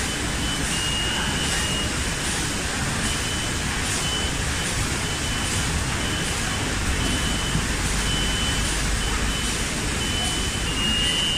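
Automated carton packaging line running: a steady low machine hum and rumble from conveyors and packing machines, with short high-pitched beeps sounding on and off every second or so.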